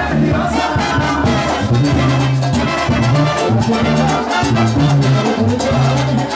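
A Mexican banda playing live through stage speakers: brass instruments over a bass line that moves in short held notes, with drums keeping time.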